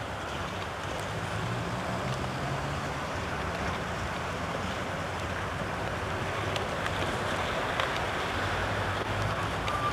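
Steady outdoor background noise picked up by a camcorder microphone: a low rumble under an even hiss, with a few faint clicks.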